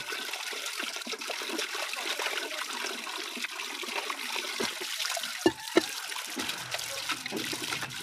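Tap water running into an aluminium cooking pot as it is rinsed and scrubbed by hand. Two sharp knocks a little past halfway.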